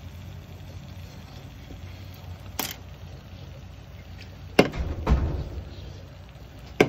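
Iwatani Junior portable gas burner running with a steady low rumble under a hot sandwich maker. Sharp clicks and knocks sound about two and a half seconds in, twice around the fifth second, and again near the end.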